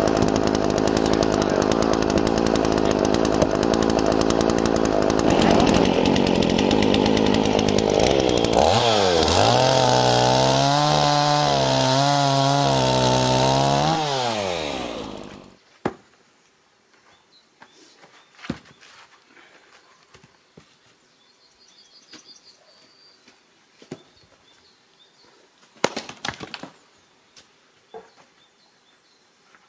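Old Dolmar two-stroke chainsaw cutting a log at full throttle; out of the cut its revs drop and swing up and down, and it stops about halfway through. A few sharp wooden knocks follow, from an axe splitting firewood.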